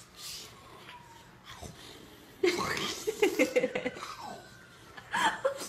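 A person laughing and giggling in breathy bursts, starting about halfway through and coming again briefly near the end.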